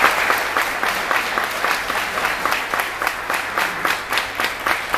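Small audience applauding, with single hand claps standing out, loudest at the very start.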